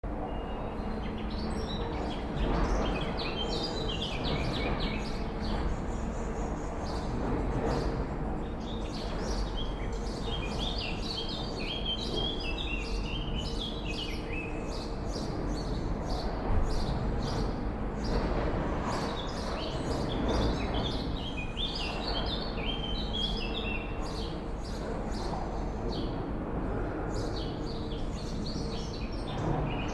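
Swallows twittering: many quick, high chirps in continuous chattering runs over a steady low background noise.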